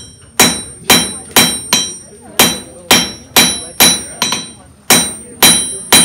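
Blacksmith's hand hammer striking iron nail stock on an anvil, about two blows a second, each blow ringing out.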